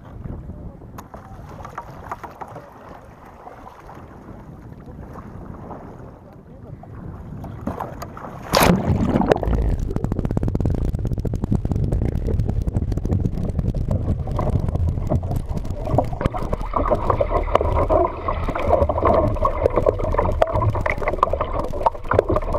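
Water and wind noise around a kayak on open water, muffled on the camera's microphone. A sharp knock comes about eight and a half seconds in, after which the noise is louder and rougher.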